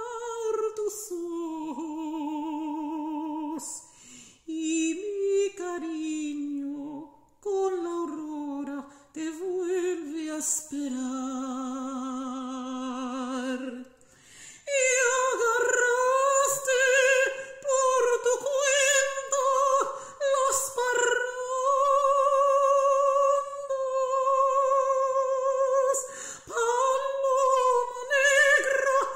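A woman singing a Mexican ranchera unaccompanied, holding long notes with vibrato. About halfway through she moves up to a higher, louder passage.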